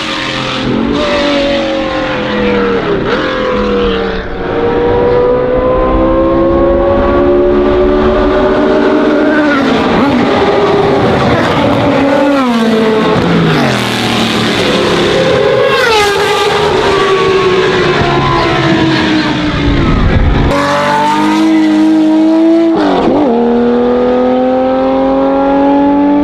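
Historic racing car engines running hard at full throttle. The pitch climbs in long steady rises and drops sharply at each gear change, with cars passing one after another.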